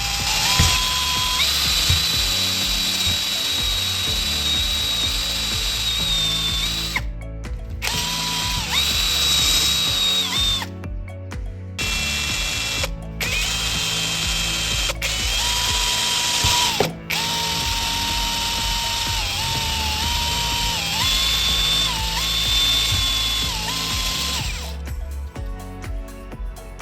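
Electric drill motor whining in several spells, its pitch stepping up and down as the speed changes, with short stops in between. Background music plays underneath.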